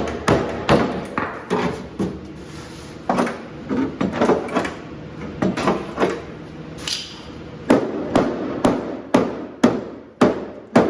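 Repeated hammer blows on the bent steel body panel of a 1967 Plymouth Barracuda, straightening a collision-damaged area by the door and fender. The sharp, ringing strikes come irregularly at first, then settle into a steady run of about two a second in the second half.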